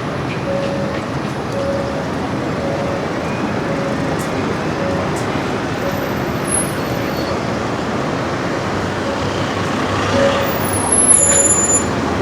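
Busy city-street traffic: a steady wash of bus and car engines and tyres, with a faint beep repeating about every seven-tenths of a second and a short high squeal near the end.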